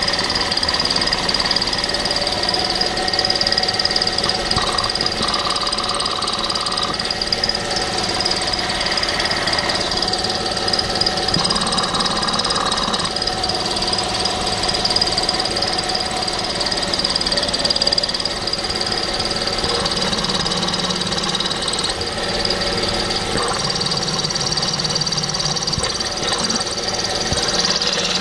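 Engine running with a rapid, steady knocking from the viscous fan clutch pulley, its mounting bolts loosened.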